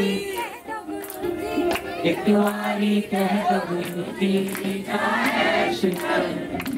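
Group of voices singing a devotional bhajan together, over steady held notes.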